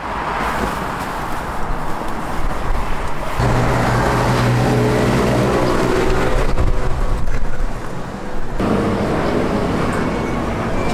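City street traffic noise from cars on the road. About three seconds in the sound changes abruptly to a steady low hum, which breaks off about two-thirds of the way through into a different traffic mix.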